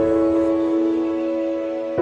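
Slow, gentle background music of sustained chords, changing chord at the start and again at the end.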